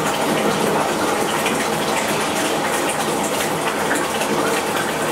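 Bathtub faucet running steadily, water pouring into a partly filled tub.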